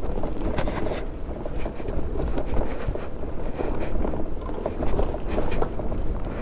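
A scooter ridden slowly over a rough, rocky dirt track: tyres crunching over loose stones and the bodywork rattling, with many short clicks over a low rumble.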